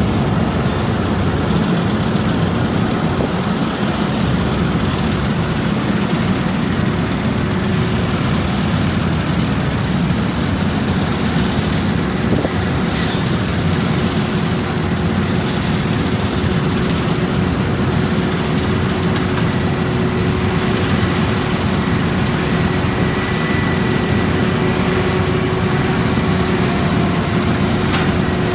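Heavy diesel road-paving machinery running steadily, with a short burst of high hiss about halfway through.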